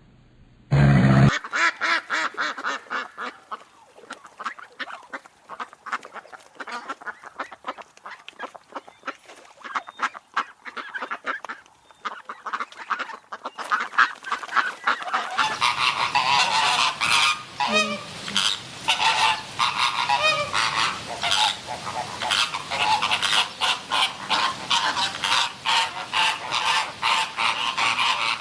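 A flock of geese honking, many overlapping short calls in quick succession, growing louder and denser about halfway through.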